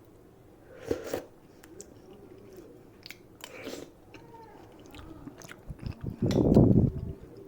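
Close-up eating sounds: a crunchy bite about a second in, more crunching around the middle, and a louder stretch of close chewing near the end.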